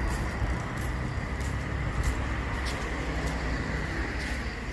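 Steady road traffic noise from a nearby highway, a continuous low rumble with a faint steady whine on top. Faint light ticks recur about every two-thirds of a second.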